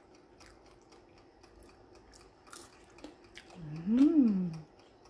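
A person hums a closed-mouth "mmm" that rises and then falls in pitch about four seconds in, while eating French fries. Before it there are only faint small clicks.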